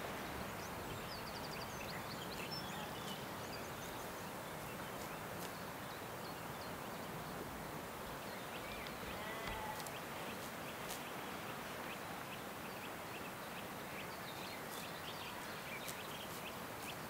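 Steady outdoor background hiss in a sheep field, with scattered faint short high chirps. A faint sheep bleat comes about nine and a half seconds in.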